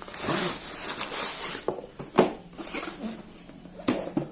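A tripod's cardboard box being opened and its contents handled: about a second and a half of scraping, rustling noise, then several sharp knocks and clicks.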